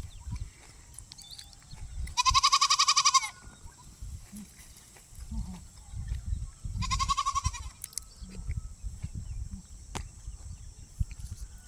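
A goat bleating twice, two loud, quavering, high-pitched calls of about a second each, over a low rumbling background noise.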